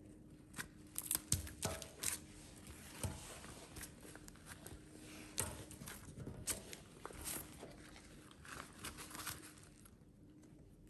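Small scissors snipping through fleshy pig face (ice plant) stems, irregular short snips and clicks several times, with light handling rustle of the succulent cuttings and rubber gloves.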